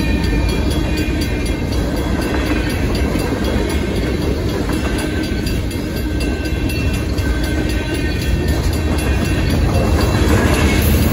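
Freight train cars rolling steadily past a railroad grade crossing: a continuous rumble of steel wheels on rail with clickety-clack over the joints, and the crossing's warning bells ringing.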